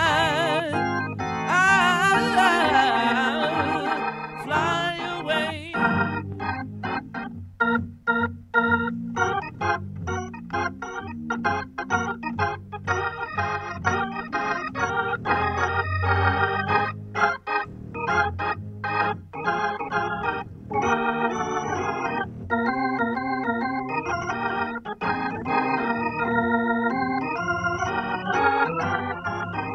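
Recorded music. A wavering, full-range passage changes about six seconds in to organ music with held, changing chords.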